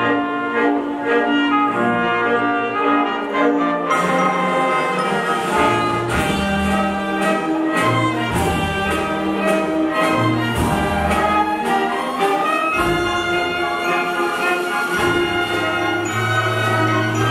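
Youth symphony orchestra playing, strings and brass together with the brass prominent; the sound grows fuller and brighter about four seconds in.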